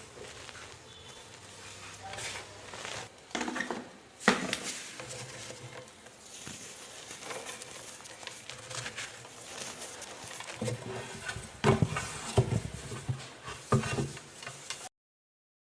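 Pressed gym chalk reforms being crushed, giving irregular dry crunches and crackles with a powdery crumble. One loud crunch comes about four seconds in, and a run of louder crunches comes in the last few seconds before the sound cuts off abruptly.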